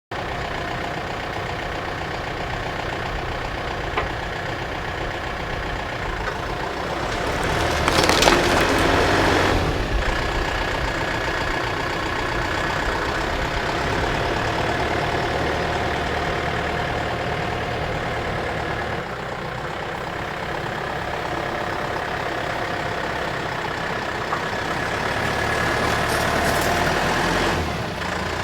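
Skid steer loader's engine running steadily while digging with a stump bucket. The engine gets louder and noisier about eight seconds in and again near the end.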